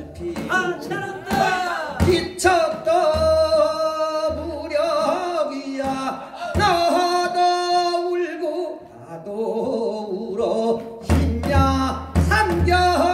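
A man singing a Korean traditional song (gugak) through a microphone, holding long wavering notes, over instrumental accompaniment with drum strokes.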